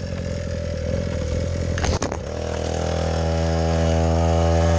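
Small 50cc engine of a Chinese kids' quad bike running slowly, with a clunk about two seconds in. Its revs then rise over about a second and hold at a steady, louder buzz.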